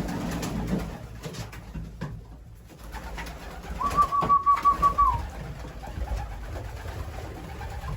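Racing pigeons cooing in the loft, low and continuous. About four seconds in, a short, high, rapidly pulsed call of about a second and a half stands out above the cooing.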